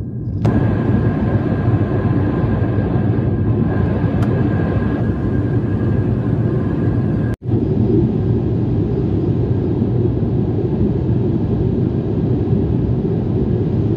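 Steady cabin noise of an Airbus airliner in flight, a deep even rush of engine and airflow heard from a window seat, with a faint steady whine above it. The sound cuts out for an instant about seven seconds in.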